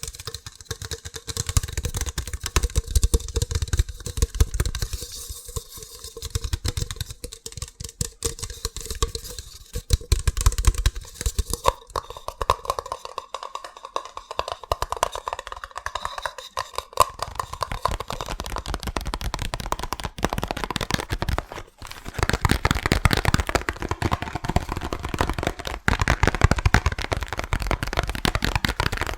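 Fast, aggressive tapping on assorted hard objects, a dense run of rapid knocks and clicks. The tone changes about twelve seconds in, and again around seventeen and twenty-two seconds, as the tapping moves to different objects.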